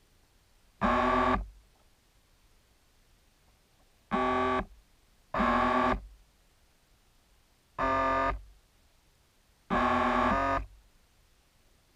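Sparse keyboard-synthesizer background music: five short held chords a second or more apart, each starting and stopping abruptly, with near quiet between them.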